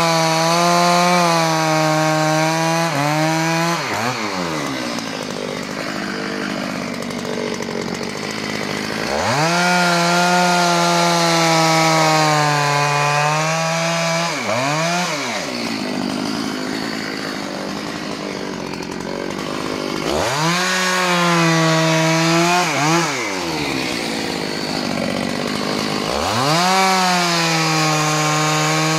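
Dolmar PS-6400 64 cc two-stroke chainsaw, still being run in, cutting through logs: it revs up to full throttle and holds there under load through each cut, then drops back to idle between cuts, with four such cuts.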